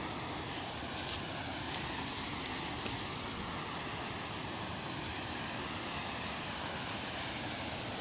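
Steady, even rushing noise with a few faint ticks in the first few seconds.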